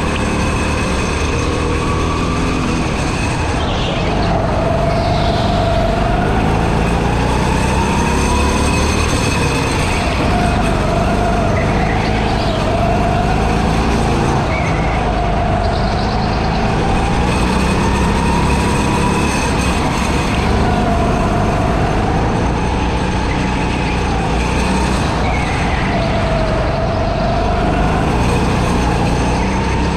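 Go-kart engine running hard on a lap, its pitch climbing and dropping again and again as the kart speeds up and slows for the corners.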